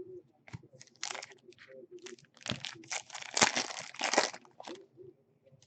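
Foil trading-card pack wrapper being torn open and crinkled, a run of crackling rustles and tears loudest in the middle.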